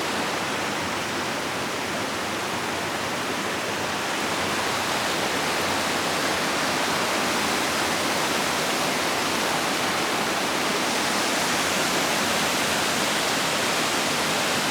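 Small waterfall pouring steadily: a dense, even rush of falling water that grows slightly louder about four seconds in.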